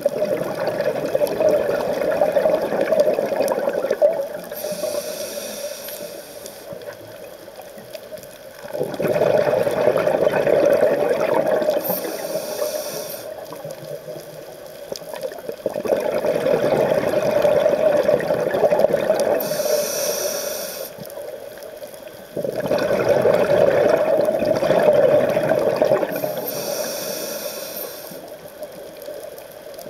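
Scuba diver breathing through a regulator underwater, four slow breaths. Each breath is a short hiss of inhalation through the regulator, then a long rush of exhaled bubbles lasting several seconds.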